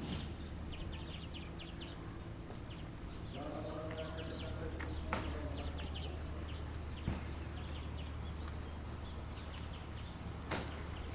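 Steady low hum under repeated short, high chirping, with a brief pitched call from about three and a half to five seconds in and a few sharp clicks.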